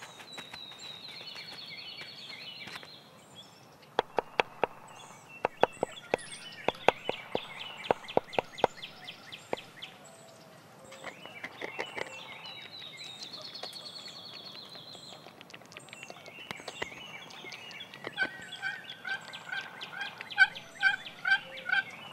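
Turkey hen yelping: a regular series of pitched yelps, about two a second, starts near the end. Before that a songbird trills twice, and a run of sharp clicks and squeaks fills the middle.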